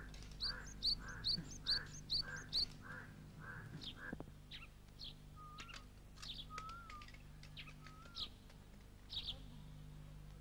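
Birds calling: a run of evenly spaced harsh calls, about two a second, mixed with quick high chirps for the first four seconds, then scattered high chirps and a few short wavering whistles, over a faint steady low hum.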